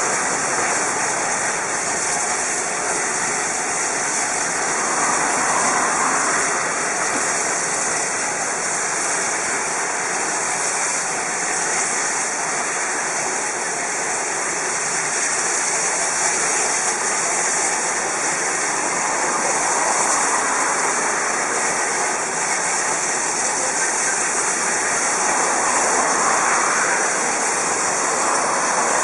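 Steady hiss of steam escaping from a DR Class 52 steam locomotive standing at rest, with no exhaust beats.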